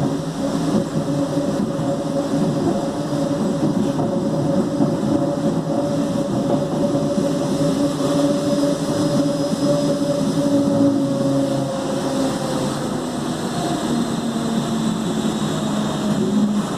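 Mafersa 'G740' electric multiple unit car 1739 droning very loudly: two steady hums over a rushing noise. About twelve seconds in, the higher hum sags in pitch and fades, and a lower hum takes over.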